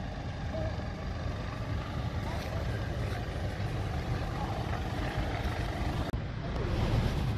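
Four-wheel-drive vehicle's engine running on an off-road track, a steady low rumble that drops out for an instant about six seconds in.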